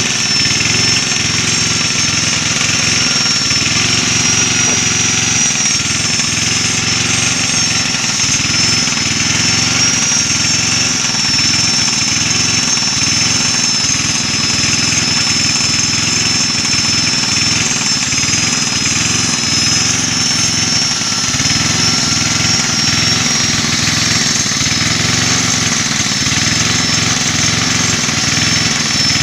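Electric angle grinder running with a steady high whine, its disc grinding the cutters of a chainsaw chain to sharpen them, over a rough, uneven grinding noise.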